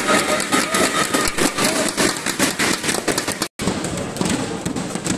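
Spectators clapping and shouting after a rally, many quick hand claps over raised voices; the sound drops out for an instant about three and a half seconds in, then the clapping thins into crowd chatter.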